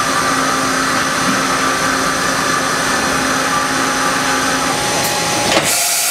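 Matsuura H300 horizontal machining center running a tool change slowly at 10% override: a steady mechanical hum with several fixed tones. Near the end comes a short, loud burst of air hiss.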